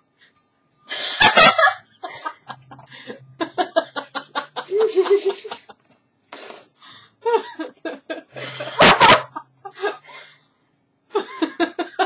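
A woman laughing hard in rapid bursts, with two loud breathy outbursts of laughter about a second in and near nine seconds.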